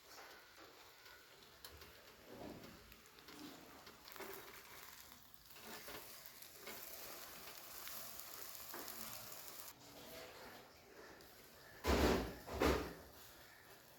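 Food sizzling softly in a pan with small kitchen handling noises, then two heavy thumps less than a second apart near the end.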